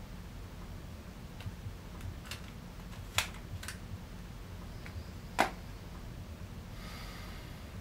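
Quiet room tone with a low steady hum, broken by a few short sharp clicks, the loudest about three seconds and five and a half seconds in.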